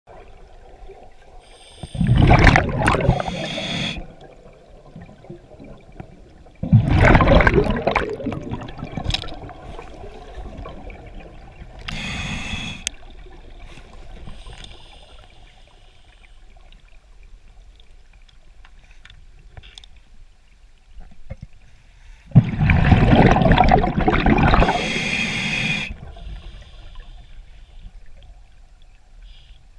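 A scuba diver breathing underwater through a regulator: loud bubbling bursts as each breath is exhaled, three long ones and one shorter, with quieter gurgling and hiss between breaths.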